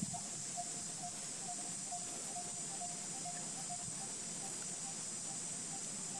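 Outdoor ambience: a steady high-pitched insect drone, with a short low note repeated about two or three times a second that fades out partway through.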